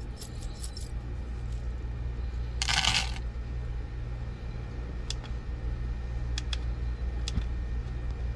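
A handful of small brass scrap pieces jingling in cupped hands, then tipped onto a metal-topped kitchen scale with a short clatter about three seconds in. A few sharp single ticks follow, over a steady low hum.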